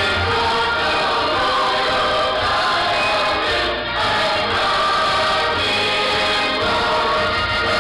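A choir singing with musical accompaniment, sustained chords held steadily with a bass line underneath.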